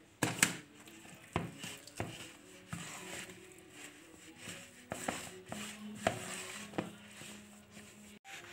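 Flour and dough being mixed by hand in a plastic bowl, with irregular knocks and taps against the bowl, the loudest near the start; faint background music underneath.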